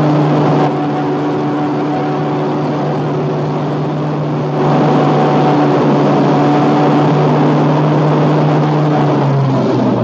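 Loud, steady drone of a heavy engine idling, a fixed low hum over a broad noisy din. The whole sound drops in loudness about a second in and comes back up about halfway through.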